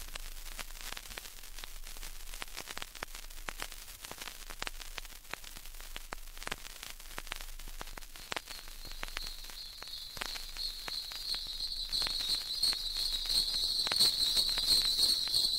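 Irregular crackling and clicking, then about halfway through sleigh bells start jingling in a steady, pulsing shimmer that grows louder toward the end.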